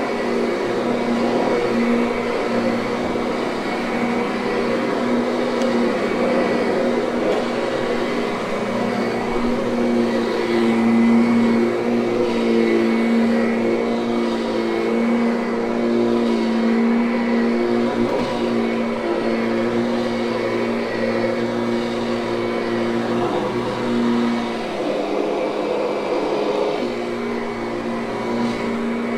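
Kirby upright vacuum cleaner running steadily as it is pushed repeatedly over a thick, hair-laden carpet, its motor hum wavering slightly in pitch.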